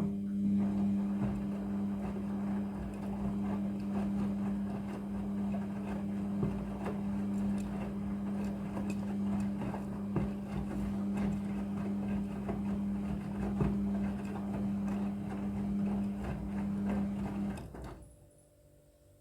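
A small motor running with a steady hum and a rattling clatter; it switches on abruptly and stops about 18 seconds in.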